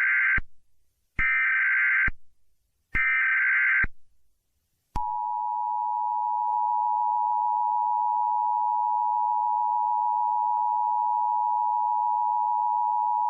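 Emergency Alert System tones. The tail of one SAME digital header burst and two more follow at even spacing, each a harsh electronic squawk about a second long. From about five seconds in, the steady two-tone EAS attention signal sounds, which announces that an emergency message follows.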